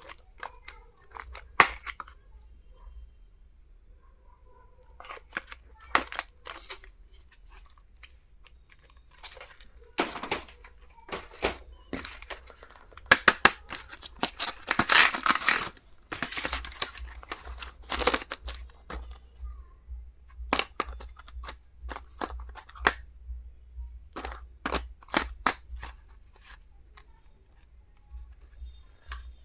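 Packaging being handled and torn open by hand: repeated crinkling and tearing with sharp clicks and taps, busiest in the middle stretch.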